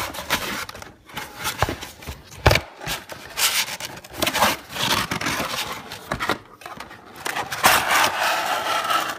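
Cardboard packaging rubbing and scraping against a plastic toy clubhouse as it is pulled out of its box, with an occasional knock.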